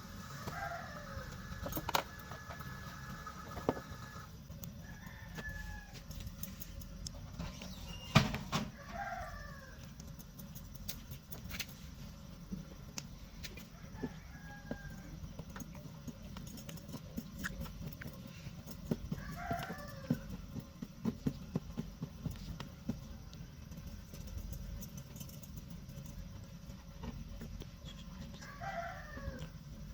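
A rooster crowing four times, roughly ten seconds apart. Scattered knocks and clicks are heard, with a loud knock about eight seconds in, over a steady low rumble of background noise.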